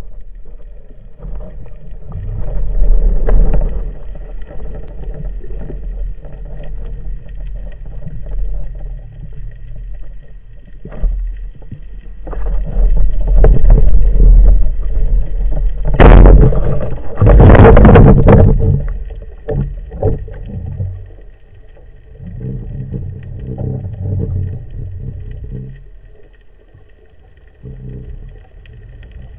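Underwater sound picked up by a camera mounted on a spearfishing speargun: a low rumble and swish of water moving past the housing, with scattered knocks. About halfway through there is a loud sudden burst of rushing noise lasting a couple of seconds, then the sound quietens.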